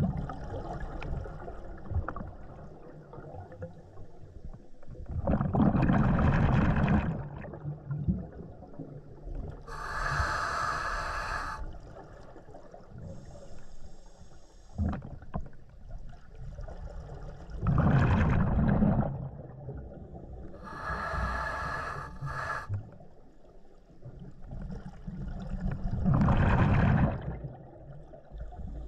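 Scuba diver breathing through a regulator underwater, in a slow repeating cycle. Each breath is a hissing inhale through the regulator followed by a loud, rumbling rush of exhaled bubbles; there are three exhales, roughly eight to ten seconds apart.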